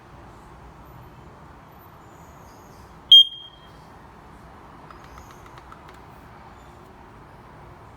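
SM11W Wi-Fi smoke alarm's sounder giving one short, loud, high-pitched beep about three seconds in. A few faint clicks follow a couple of seconds later.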